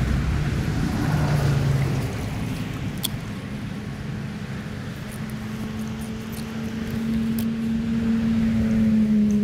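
A steady engine hum comes in about three seconds in and grows louder, its pitch dipping at the very end as it passes, over a low rush of stream water and wind on the microphone.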